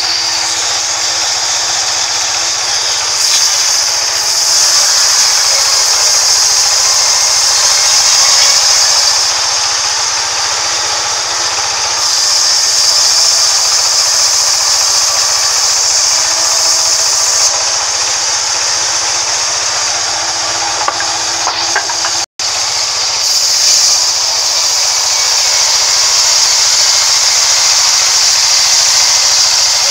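Sawmill band saw ripping a long timber slab lengthwise: a loud, steady running noise with a strong high hiss from the blade in the wood. The sound cuts out for an instant about two-thirds of the way through.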